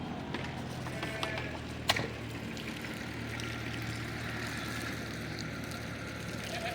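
A steady low engine hum, with a single sharp knock about two seconds in and a short wavering call near the end.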